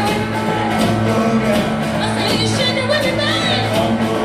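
Blues-rock band playing a boogie live, an instrumental passage with a steady drum beat, a held bass line and bending melodic lines over the top.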